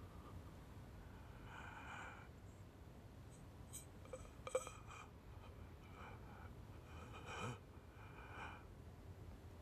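A man's faint sobbing breaths and gasps, in several short bursts, with one short sharp click about halfway through.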